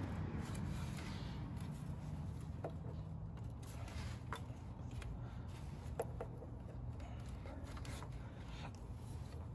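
Plastic thermostat housing being handled and pushed into position on the engine: rubbing with a few light clicks, over a steady low hum.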